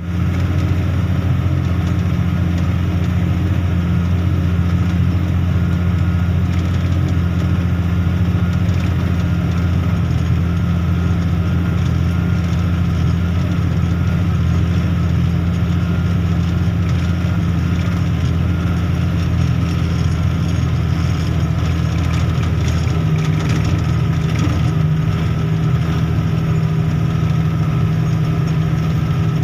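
Caterpillar 777E haul truck's diesel engine running steadily with a deep drone, heard from inside the cab while the truck is under way. About 23 seconds in, the lowest part of the note drops away and a slightly higher note takes over.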